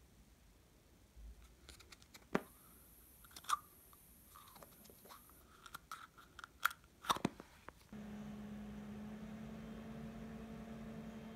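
Plastic screw lid of a Vaseline petroleum jelly jar being handled and twisted open: scattered small clicks and rubbing, with a few sharper snaps. About eight seconds in, a steady low hum takes over.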